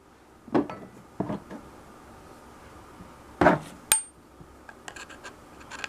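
A few light clicks and knocks of Beretta 92FS pistol parts being handled and set down on a bench, with a short metallic ring from one knock about four seconds in.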